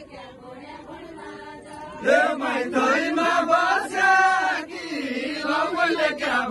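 Group of men singing a deuda folk song together in a chanting style, coming in loudly about two seconds in over quieter crowd voices.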